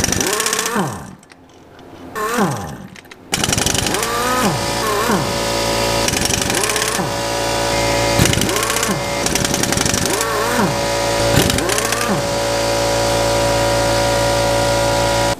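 Pneumatic impact wrench hammering away at the flywheel bolts to loosen them. It starts abruptly about three seconds in and then rattles on steadily.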